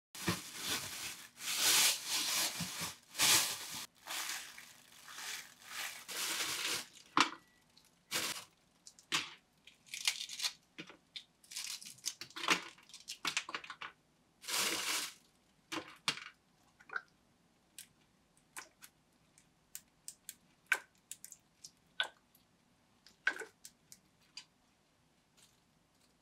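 Thin plastic bag rustling and crinkling loudly in bursts as it is handled and emptied. After that come scattered soft taps and clicks as food pieces are laid one by one on a baking tray.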